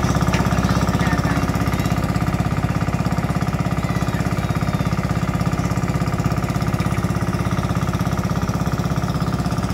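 An engine running steadily at close range, with a rapid, even pulsing beat strongest in its low end.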